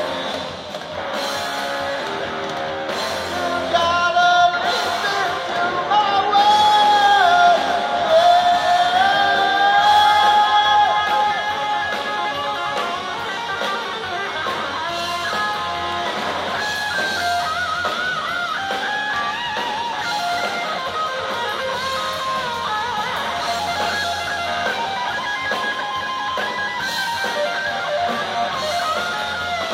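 Music led by guitar, louder for several seconds a few seconds in.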